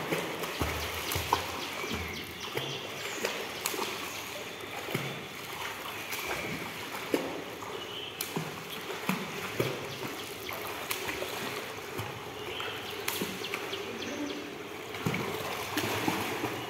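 Pool water splashing and sloshing as a swimmer does front crawl. The kicks and arm strokes make irregular small splashes over a steady wash of moving water.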